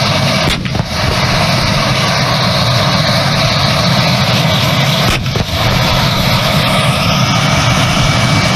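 Tank engine running with a steady low rumble and hiss, with a brief break about half a second in and again about five seconds in.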